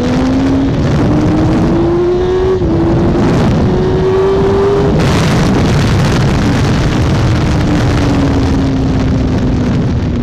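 2007 Yamaha R1's inline-four engine pulling hard at speed, its pitch rising, dropping at a gearshift about two and a half seconds in, then rising again. Around halfway the note drops away and then falls steadily as the bike slows toward a corner, all under heavy wind rush on the microphone.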